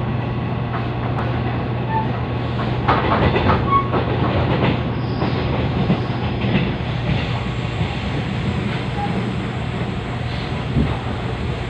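Taiwan Railways EMU500 electric multiple unit running along the line: a steady motor and running hum with wheels clattering over the rails, and a burst of clatter with brief wheel squeals about three to four seconds in.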